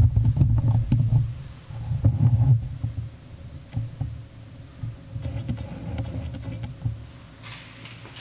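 Low rumbling handling noise on the microphone while the camera is carried and set into position. It is loudest for the first two to three seconds, then dies down to a few light knocks.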